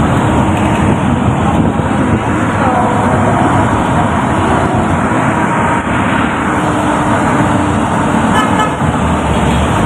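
Engine and road noise from inside a moving vehicle, heard through its open window along with street traffic.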